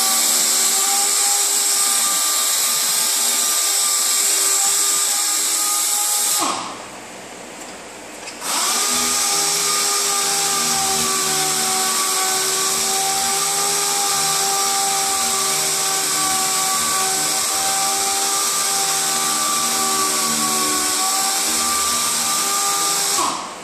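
Air-powered random-orbital sander with a 3000-grit pad wet-sanding the clear coat on a car hood, to bring the gloss back before compounding. It runs with a steady whine over a hiss, stops about six seconds in, starts again two seconds later, and stops near the end.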